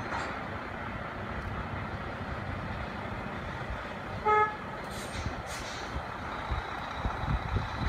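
Tractor-trailer running at a distance with a steady low rumble. A single short horn toot sounds about halfway through, followed by a couple of brief hisses.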